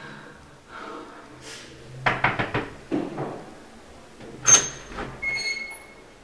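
A door being unlocked and opened. First comes a quick run of rattling clacks about two seconds in, then a loud sharp clack about halfway through. A short high ringing note follows before the door swings open.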